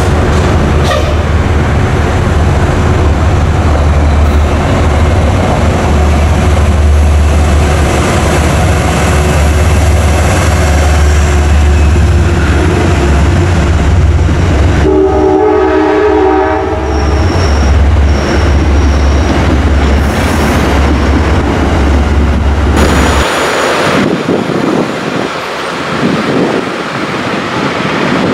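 An Amtrak passenger train led by a GE Genesis diesel locomotive passes close by with a heavy, steady engine and rail rumble. It sounds its horn briefly about fifteen seconds in, and a few short high squeaks follow. A little past twenty seconds the rumble cuts off and a lighter, airier noise takes its place.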